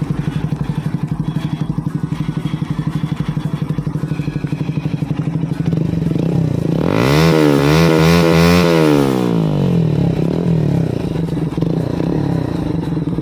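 Bajaj Pulsar NS125's single-cylinder engine idling loud through an aftermarket Akrapovic full-system exhaust with bend pipe, then revved in a few quick blips about halfway through before dropping back to idle.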